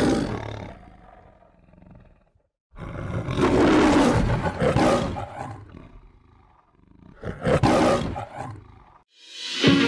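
Lion roaring in the MGM-style logo intro: a roar fading out at the start, a long full roar about three seconds in, and a shorter one about seven seconds in. Music with steady held notes begins right at the end.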